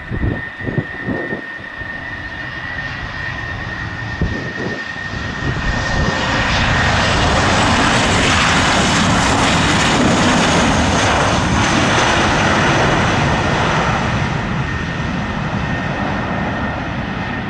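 The CFM LEAP-1B jet engines of a Boeing 737 MAX 8-200 on landing, with a steady high whine and a rush of jet noise that swells from about six seconds in, is loudest for several seconds, then eases off. A few low thumps are heard near the start.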